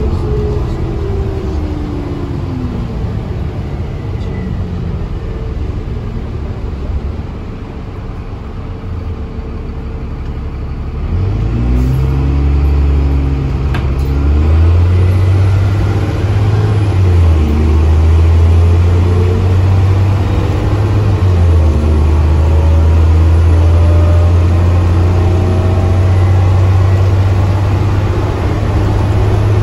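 Dennis Trident double-decker bus engine heard from inside on the upper deck. For the first several seconds the engine note falls and eases off as the bus slows. From about eleven seconds in, the engine pulls hard with a loud low drone, rising and dropping as it changes up through the gears twice.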